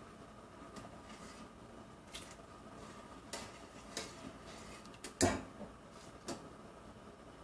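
A few light clicks and knocks of kitchen utensils against a cooking pot, the loudest about five seconds in, over a faint steady hum.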